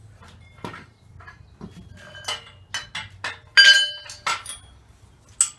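Metal parts of a table saw stand clinking and knocking against each other as they are handled and fitted together during assembly: about ten sharp knocks, several of them ringing briefly, the loudest a little past halfway.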